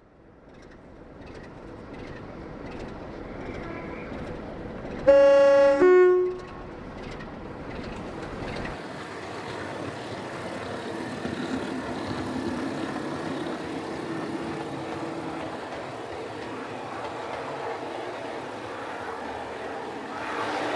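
Train running with a steady rumble and hum that slowly grows louder. About five seconds in, a two-tone horn sounds, a lower note then a higher one, about a second and a half in all.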